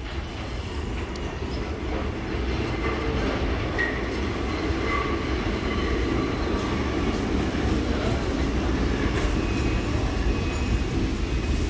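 Franklin Avenue Shuttle subway train approaching a station platform out of a tunnel, its low rumble growing louder over the first few seconds and then holding steady, with faint high-pitched wheel squeal from the rails.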